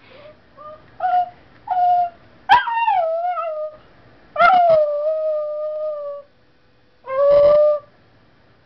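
Small dog howling: a few short yelps, then two long howls that start high and slide down in pitch, and a shorter third howl near the end. The owner puts the howling down to the dog's poor eyesight.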